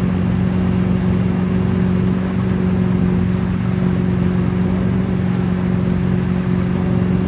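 Tow boat's engine running steadily at speed with an unchanging drone, with rushing wind and water noise underneath.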